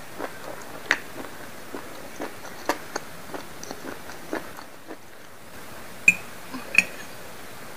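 Close-up wet chewing of squid ink spaghetti, with soft mouth clicks about two to three times a second. Near the end, two sharper clinks of a metal fork against the plate as it dips back into the noodles.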